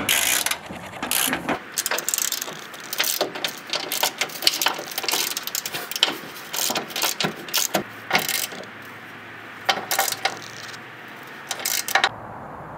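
Hand socket ratchet clicking rapidly as it turns the rear bumper's mounting nuts on the truck frame. It goes in several bursts with short pauses and stops near the end.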